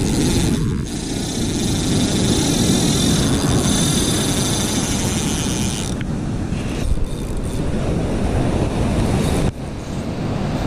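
Steady, loud wind noise buffeting the microphone, over the rush of surf breaking on the beach.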